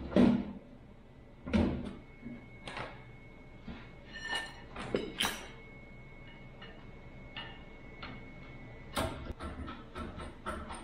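Clanks and knocks of a diamond-plate aluminium step box being handled and fitted back onto a semi truck. A loud knock at the start, scattered knocks with a brief metallic ring a few seconds in, and a quicker run of clicks and taps near the end.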